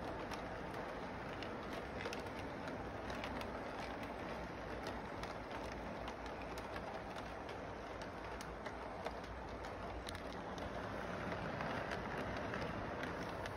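Electric model train running around a loop of track: a steady whirring noise from the motor and wheels, with frequent small clicks as the cars roll over the rail joints.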